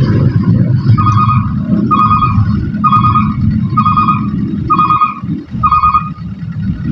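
An electronic warning beeper sounds six times, about once a second, over the steady low rumble of truck engines.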